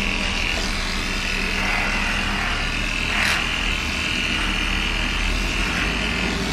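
Electric dog-grooming clipper running with a steady buzz as it shaves a pug cross's fur, with a brief rougher swell about halfway through. The groomer says hair is getting caught between the blades.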